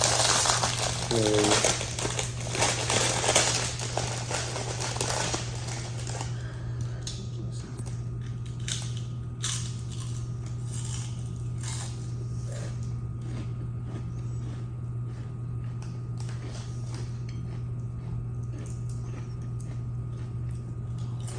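Food being handled and eaten: loud rustling and crinkling for about the first six seconds, then scattered small clicks and knocks over a steady low hum.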